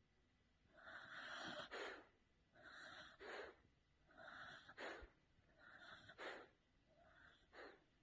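Faint snoring of a sleeping dog: five wheezy breaths about a second and a half apart, each ending in a short sharp snort, growing fainter toward the end.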